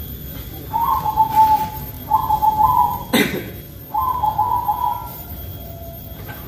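Three short whistled phrases at a steady mid pitch, each about a second long with small steps in pitch. A single sharp knock falls just after the second phrase.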